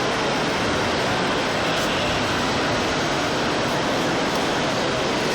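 Steady, even background din with no distinct tones, knocks or rhythm.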